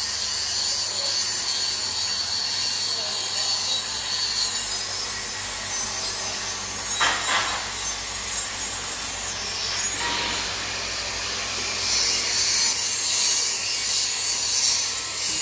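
Steady, scratchy hiss of welding-shop noise, with short scraping sounds about seven and ten seconds in.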